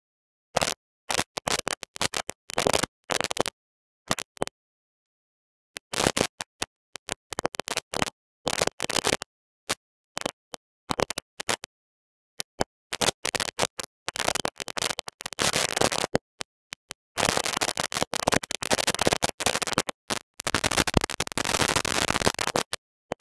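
Scratchy, crackling handling noise in irregular bursts that cut in and out to dead silence, denser and longer in the second half.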